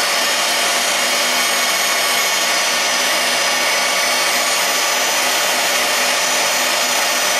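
Electric meat grinder's motor running steadily under load, pushing forcemeat through the sausage-stuffing nozzle into a collagen casing. A loud, even whirring hum with no let-up.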